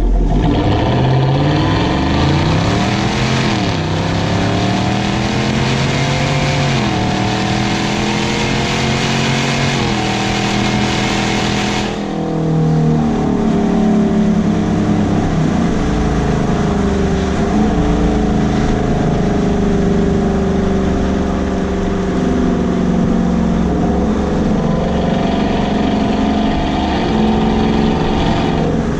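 Exhaust of a 6.2-litre V8 Chevrolet Silverado 1500 with a Corsa Sport cat-back exhaust, accelerating with the pitch climbing and dropping back three times as it shifts up. About twelve seconds in it settles into a steadier cruising note.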